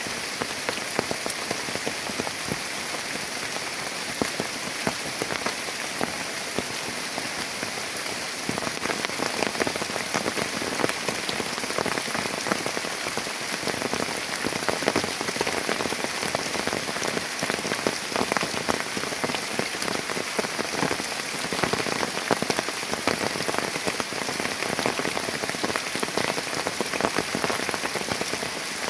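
Heavy rain falling steadily, with many sharp hits of single drops close by. It grows a little heavier about eight seconds in.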